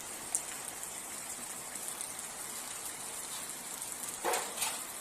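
Steady rain falling, an even hiss, with one sharp tick just after the start and a brief louder clatter a little past four seconds in.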